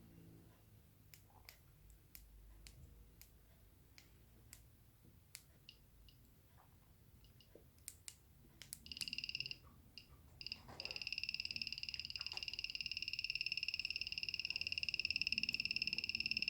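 Xiaomi Mi M365 electric scooter giving off a rapid, high-pitched clicking beep that starts in short bursts about nine seconds in and then runs steadily, after a few faint scattered ticks. The scooter will not power up even though its battery tests fine on a multimeter.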